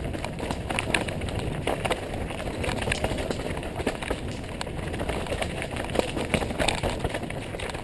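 Mountain bike riding down a rocky trail: a steady rumble of tyres over rock and dirt, with frequent sharp clatters and knocks from the bike bouncing over rocks.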